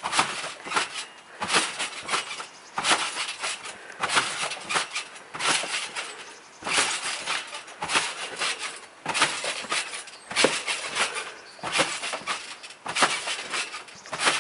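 A garden trampoline sounding as someone bounces on it: a noisy burst from the springs and mat about every second and a half, in a steady rhythm.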